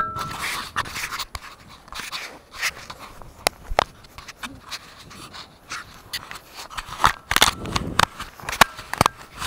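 Handling noise from a small action camera: fingers rubbing, tapping and scraping right against the camera's housing, giving scattered sharp clicks and scratchy rubs, with a longer, louder rub about seven seconds in.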